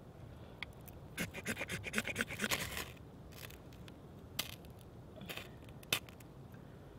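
Knife spine scraped down a ferrocerium rod to throw sparks and light fire tinder: a quick run of short scrapes about a second in, then a few single strikes.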